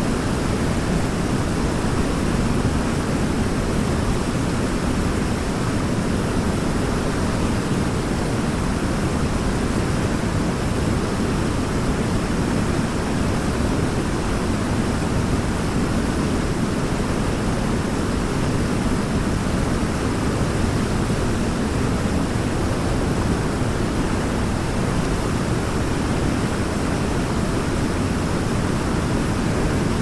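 Waterfall and river water rushing in a steady, unbroken deep wash of noise, with no single splashes or other sounds standing out.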